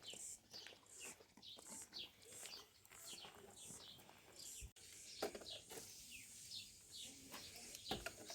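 Small birds chirping, faint: many short high chirps that slide downward, several a second, with a couple of soft knocks in between.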